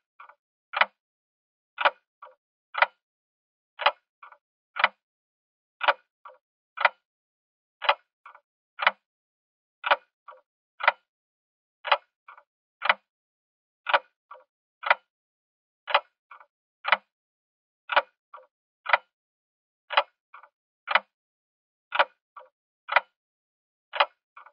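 A clock ticking steadily: a sharp tick about once a second, with fainter ticks between them, in an even repeating rhythm.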